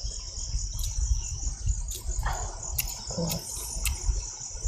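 Crickets chirring steadily at a high pitch over a low rumble, with a few faint clicks.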